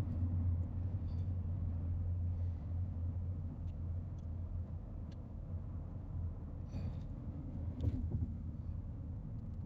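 Rain, heard as a steady low rumbling wash with a few faint ticks.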